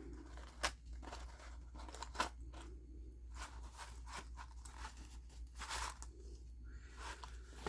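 Soft, scattered rustles and small clicks of paper and card being handled, with a few sharper taps.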